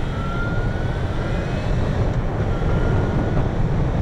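Yamaha FZ6N inline-four motorcycle engine running under way, with heavy wind rush on the chest-mounted microphone. A faint engine whine rises slightly in pitch as the bike gains speed.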